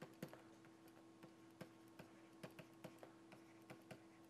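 Faint, irregular clicks of a stylus tip tapping on a tablet's writing surface as words are handwritten, a few per second, over a steady low electrical hum.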